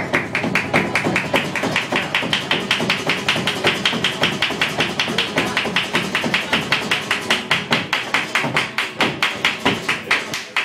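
Flamenco dancer's footwork (zapateado): a fast, even run of heel and toe taps on the stage floor, about six a second, over flamenco guitar.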